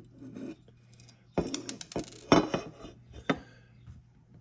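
Small metal gun parts and tools clinking and clattering while an AR-15 lower receiver is handled during assembly: a quick run of sharp clicks a little after the start, the loudest near the middle, then one more single click later.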